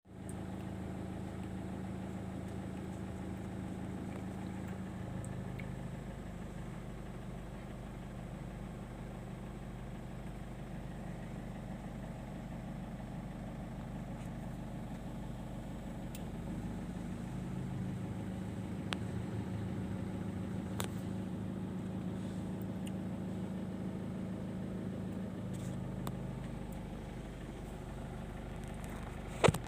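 Steady engine hum, its low tones shifting a few times, with a sharp knock near the end.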